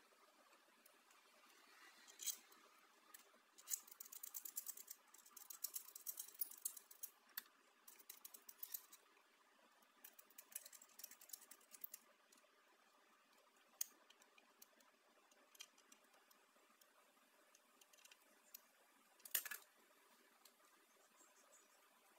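Faint, irregular clicking and rustling of small parts being handled, with runs of quick ticks in the first half and a single sharper click near the end.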